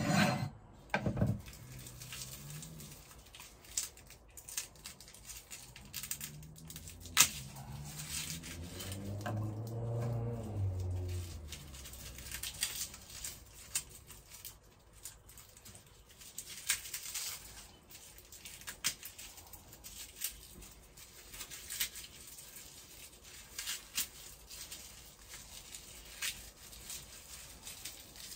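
Garlic cloves being peeled by hand over a wooden cutting board: scattered light papery crackles and clicks, with a few sharper knocks near the start and about seven seconds in. A low hum swells and fades around ten seconds in.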